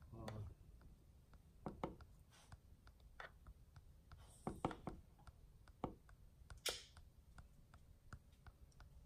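Faint, irregular clicks of a TV remote's power button being pressed over and over, with a little handling noise from the remote; the set stays in standby and does not respond.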